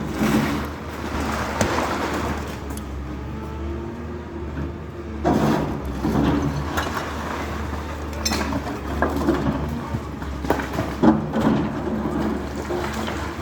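A heavy machine's engine running steadily, with irregular knocks and cracks of rubble being broken during demolition.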